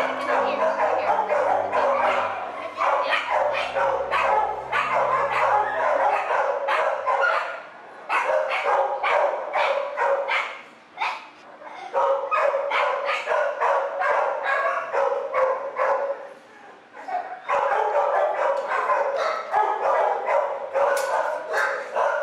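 Many shelter dogs barking in their kennels, short barks overlapping in a near-constant din with a couple of brief lulls. Background music runs underneath for the first several seconds and then stops.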